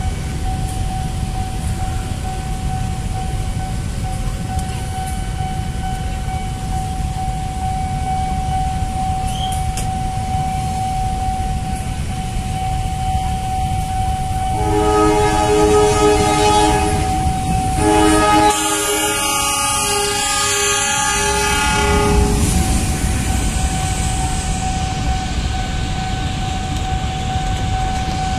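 A train's multi-tone horn sounds two long blasts, starting about fifteen and eighteen seconds in. Under it a level-crossing warning signal holds one steady tone throughout, over the rumble of road traffic.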